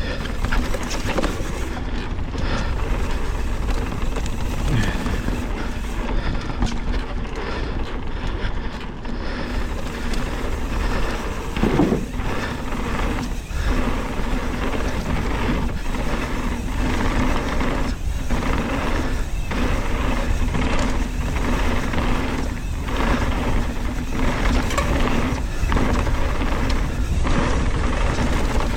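Chromag Dr. Hawk hardtail mountain bike descending a dirt trail at speed: wind rushing over the microphone and tyres rolling over dirt, with repeated knocks from bumps. An Industry Nine Hydra freehub buzzes steadily while coasting and drops out in places where the rider pedals.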